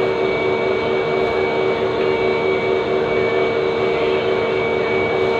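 Steady machine drone with several held tones over a constant noise, unchanging throughout.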